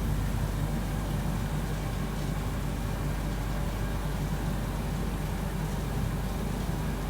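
Blower and circulating pumps of a gold-refining fume-filter machine running together with a steady low hum.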